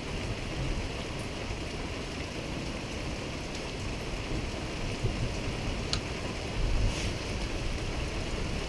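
Steady rushing background noise with a few faint clicks about six and seven seconds in.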